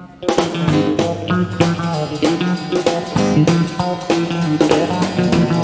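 Live country band starting the song's instrumental intro: the whole band comes in together about a quarter second in, with electric guitars, pedal steel, bass, piano and drum kit playing a driving beat.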